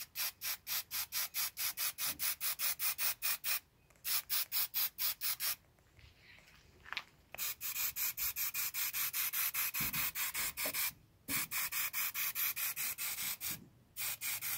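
Aerosol spray-paint can hissing as paint is sprayed, the hiss chopped into rapid pulses about six or seven a second. It comes in runs of a few seconds with short breaks between them.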